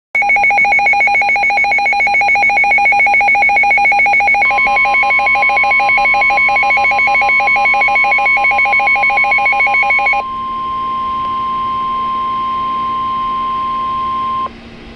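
Electronic alert tones: a fast-pulsing, ringing alarm for about ten seconds, joined about four seconds in by a steady one-pitch warning alarm tone of the NOAA Weather Radio kind. The steady tone carries on alone after the pulsing stops and cuts off abruptly shortly before the end. Together they signal an emergency warning about to be read.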